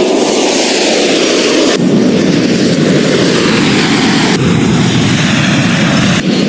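Loud jet airliner engine noise as the aircraft land and roll out along the runway, the pitch falling slowly as each one goes past. The sound changes abruptly about two seconds in, again past four seconds, and near the end, as a different airliner is heard each time.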